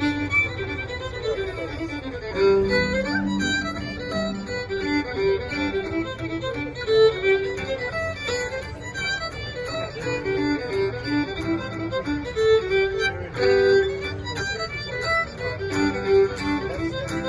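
Irish fiddle playing a brisk hornpipe melody in quick, even notes, with guitar accompaniment underneath.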